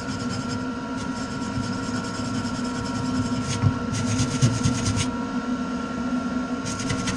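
Welder laying a series of short tack welds: four bursts of fast crackling, each lasting half a second to two seconds, over a steady machine hum.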